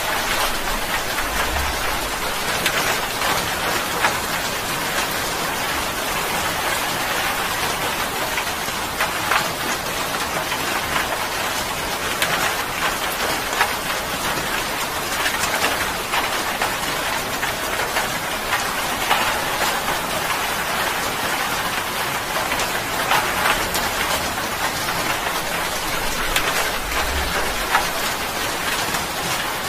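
Heavy rain falling steadily on a wet surface: a dense, even hiss with many small drop splashes.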